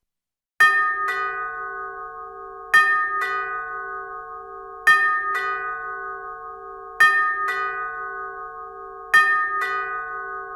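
Two-tone ding-dong doorbell chime rung five times, about two seconds apart, each ring a pair of struck notes that ring on and fade.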